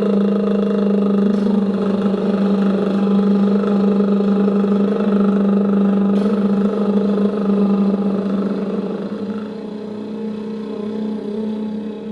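A woman holding one long voiced trill, a buzzing "brrr" on a single steady low note, as a relaxation exercise for the throat, lips, cheeks and jaw. It softens a little after about nine seconds.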